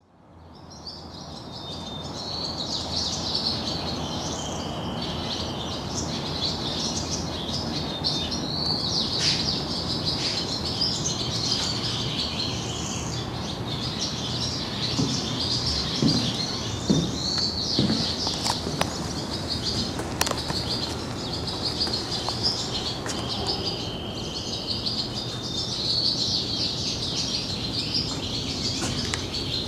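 Small birds chirping and twittering continuously, with a few longer held whistled notes, over a steady low background rumble; a few soft knocks about halfway through.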